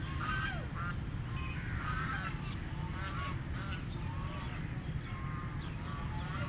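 Ducks quacking over and over in short, overlapping calls, over a steady low rumble.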